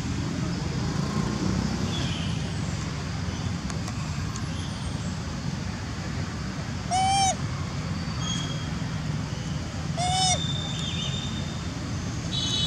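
Two short coo calls from a long-tailed macaque, about three seconds apart, each rising and then falling in pitch, over a steady low background rumble.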